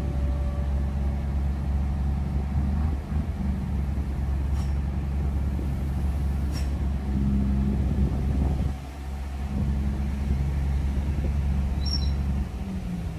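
Heavy diesel truck engines running hard under load, pulling and pushing a stalled 60-ton trailer truck up a slope: a steady low drone that dips briefly about nine seconds in.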